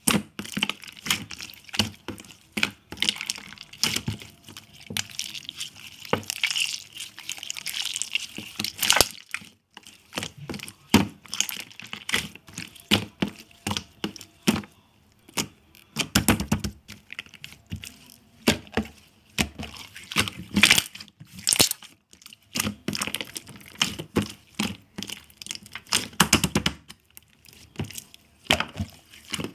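Slime being squeezed and pressed by hand, giving a dense, irregular run of small pops and crackling clicks.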